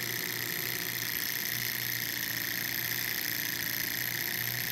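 Small two-cylinder Stirling engine running steadily at speed, a constant mechanical whir from its flywheel, pistons and belt-driven LED generator. The base is held down by hand, which the owner says lets it run slightly faster because less energy goes into vibrating.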